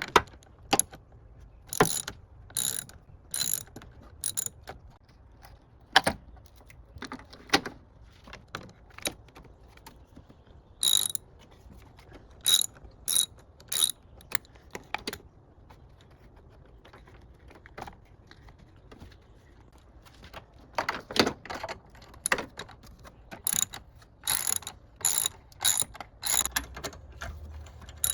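Hand ratchet wrench clicking in short bursts of a few clicks each, with pauses between bursts, as fasteners are turned.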